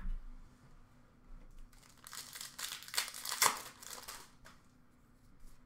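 Plastic wrapper of a trading-card pack crinkling and tearing as it is handled and opened, loudest from about two to four seconds in. A soft bump right at the start.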